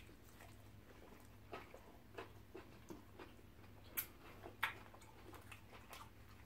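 Eating sounds: scattered wet mouth clicks and smacks from chewing and sucking soup off the fingers, the loudest about four seconds in and again half a second later.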